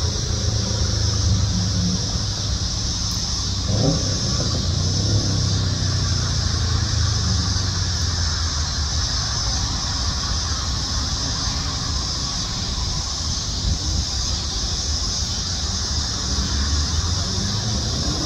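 Low, steady motor-vehicle engine rumble with a steady high hiss over it. The pitch sweeps briefly about four seconds in, and the engine note starts rising again near the end.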